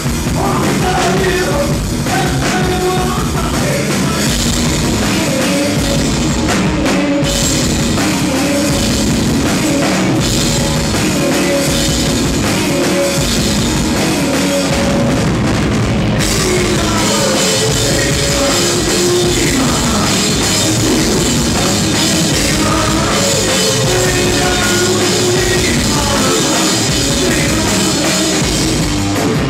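Rock band playing live and loud: a full drum kit pounding under electric guitar.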